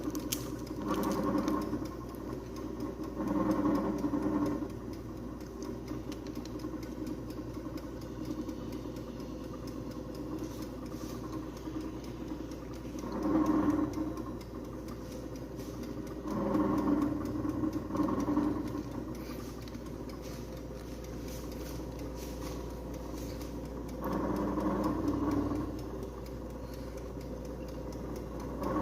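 Electric air fryer running with a steady motor and fan hum. Every few seconds a louder, rattly buzz rises for about a second and falls back: the abnormal noise the fryer is making.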